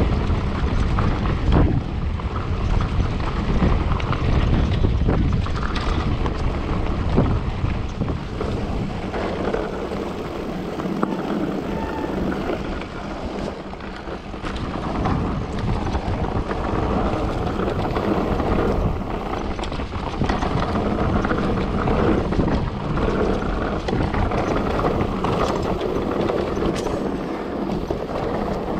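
Wind buffeting the microphone of a camera on a moving mountain bike, with the rushing hiss of tyres over the trail and scattered knocks and rattles from the bike. The low wind rumble is heavy at first, eases about nine seconds in, and the rolling hiss then dominates.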